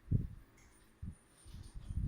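A few soft, dull thuds and scuffles of cats playing and tussling, about three of them in two seconds.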